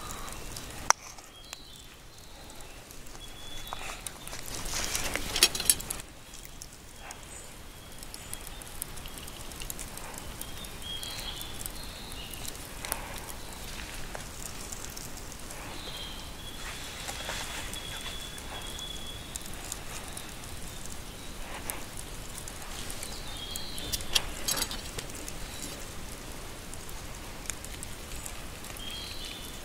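Small campfire of charcoal and split wood crackling, with scattered clicks and scrapes of a knife cutting meat on a wooden board and of metal skewers being pushed through the meat. A louder rustling stretch comes about five seconds in, and faint high calls from wildlife sound now and then.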